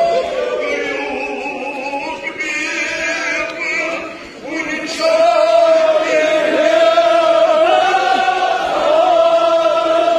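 Men's voices chanting together in a drawn-out, wavering melody, a devotional chant by the gathered mourners. The singing dips briefly and then gets louder about five seconds in.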